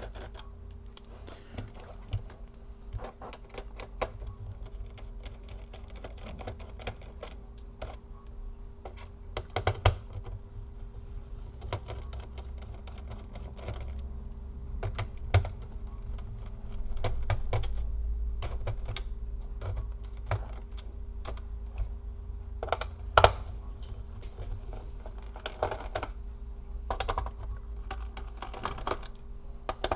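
Small screwdriver and screws clicking and tapping against a laptop's plastic and metal chassis as screws are taken out: scattered irregular clicks, with a low handling rumble and a faint steady hum underneath.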